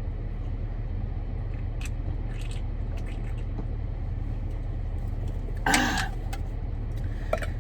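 A car's engine idling, heard inside the cabin as a steady low hum. There are a few faint clicks of handling and one short, loud throat sound about six seconds in.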